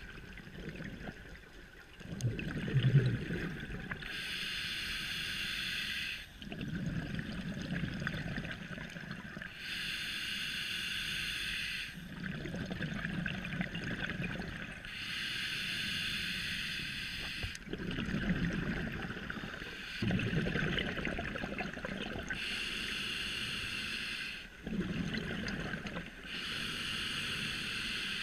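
Scuba diver breathing through a regulator underwater: a hissing inhale of about two seconds alternating with a bubbling exhale, about one breath every five to six seconds.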